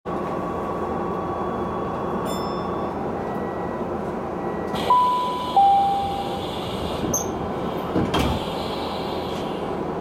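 Train door chime from a speaker grille above the door: a two-note descending electronic chime about five seconds in, the second note fading away. Behind it runs the steady rumble of the train car. There is a short squeak and then a knock about three seconds after the chime.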